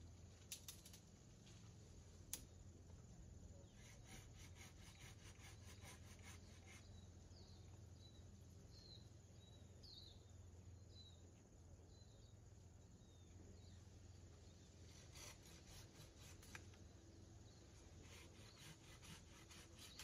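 Faint outdoor ambience over a steady low hum. A small bird gives a string of short high chirps through the middle, and faint rapid crackling comes in two spells, one before the chirps and one toward the end.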